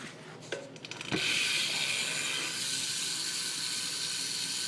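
Profile Mini rear cassette hub of a BMX bike freewheeling as the back wheel spins. A few clicks are followed, about a second in, by a loud, steady buzz of the pawls ratcheting.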